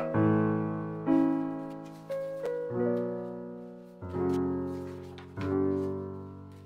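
Background piano music: gentle chords, each struck and left to fade before the next, about one every second or so.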